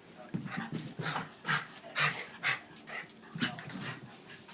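Small terriers at play, making short dog noises in quick succession, about two a second.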